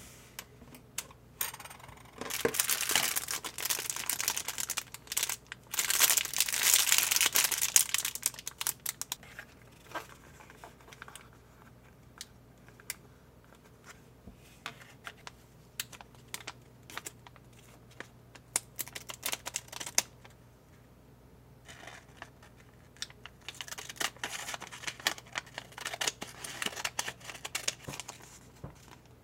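Thin plastic candy-kit packaging and packets crinkling as they are handled, in two long stretches of rustling, a couple of seconds in and again near the end, with scattered light clicks and taps of plastic pieces between.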